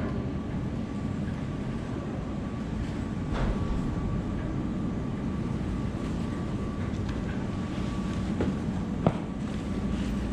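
Steady low rumble of a vehicle in motion, heard from inside, with a faint steady tone and a few light clicks and knocks, one sharper about nine seconds in.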